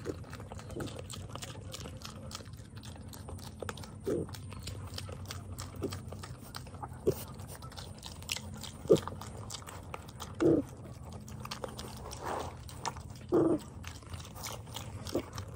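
Two spotted Poland China piglets crunching and chewing dry feed pellets in a rubber trough: a steady run of small crunches and clicks. A few short grunts stand out, the loudest about ten and thirteen seconds in.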